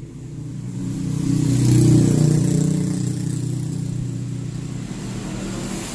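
A passing road vehicle's engine, growing louder to a peak about two seconds in and then slowly fading away.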